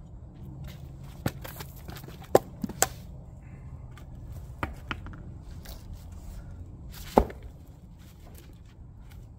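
Split firewood pieces knocking together in a series of sharp, short wooden clunks as they are handled, the loudest about seven seconds in as a new round is set down on the chopping block, with footsteps in dry leaf litter between.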